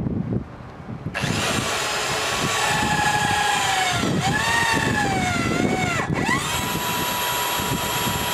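Electric pipe press tool running as it crimps a Mapress press-fit fitting onto steel pipe. Its motor starts about a second in, and its pitch sags and wavers as it works. Around six seconds in it settles to one steady pitch.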